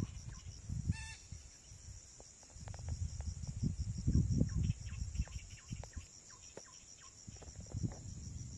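Wind buffeting the microphone in gusts over a steady, pulsing drone of insects, with a short bird call about a second in and a few small handling clicks.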